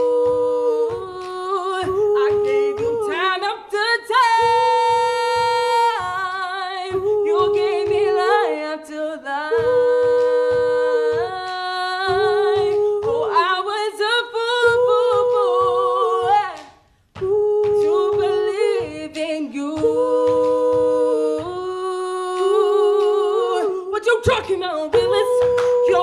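A cappella vocal group singing: a girl's solo voice leads over harmonising backing voices, with a steady beat stomped by foot about twice a second. The singing breaks off briefly about seventeen seconds in.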